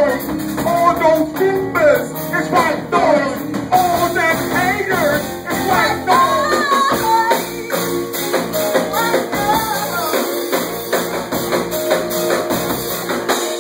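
A live rock band playing: guitar and drums under a wavering lead melody, over long held chords.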